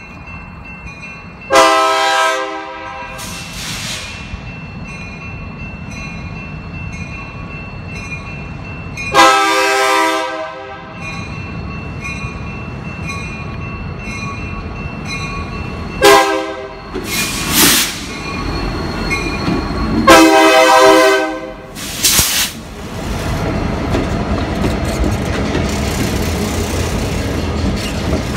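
Diesel freight locomotive BNSF 2720 approaching a grade crossing and blowing its multi-chime air horn in spaced blasts: long, long, then short ones and a final long one, the grade-crossing pattern. A crossing bell dings steadily in the background, and from about 23 seconds in the locomotives and freight cars pass close by with engine rumble and wheels clattering over the rails.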